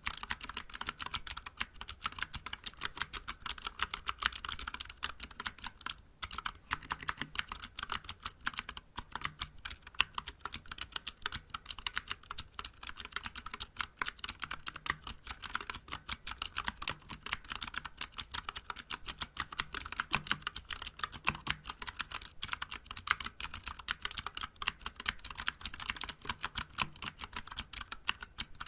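Fast, continuous typing on a Vortex Vibe mechanical keyboard with clicky Cherry MX Blue switches and SA-profile keycaps, each keystroke giving a sharp click, with brief pauses about six and nine seconds in.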